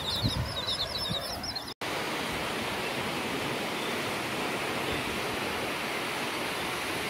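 A bird gives a quick run of high chirps, cut off abruptly about two seconds in. Then a steady, even rush of surf breaking on the beach takes over.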